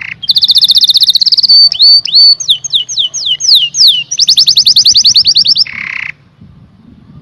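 Domestic canary singing loudly. It gives a fast, high trill, then a run of downward-sliding whistled notes and a second rapid trill. A short harsh rasping note follows, and the song stops about six seconds in.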